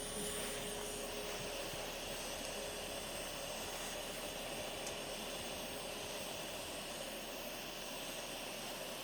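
Steady hissing roar of a pressurized camp burner, running evenly without change.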